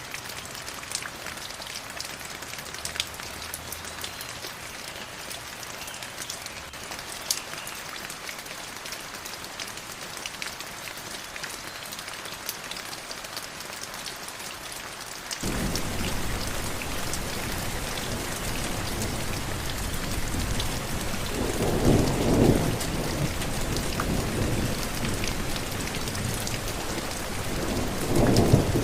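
Steady rain with scattered sharp drip ticks. About halfway through, a louder, deeper rush of rain cuts in abruptly, with two swelling low rumbles of thunder, one in the second half and one near the end.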